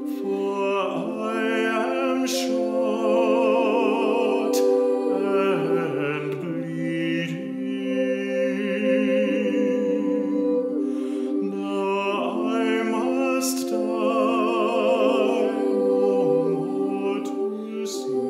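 Girls' voices singing a slow song with a marked vibrato, over a viola and cello accompaniment holding low sustained notes.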